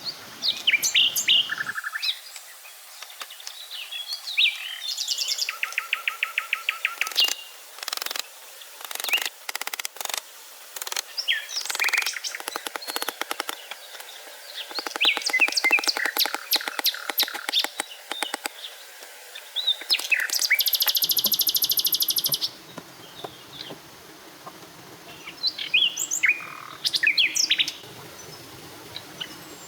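Several birds chirping and trilling in forest, with short calls, rapid repeated notes and a dense buzzy trill lasting about two seconds, about two-thirds of the way in.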